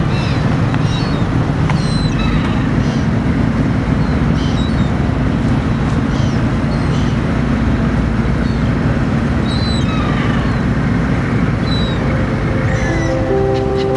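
A boat engine running steadily in a low rumble, with seagulls calling over it in short cries. Music comes in near the end.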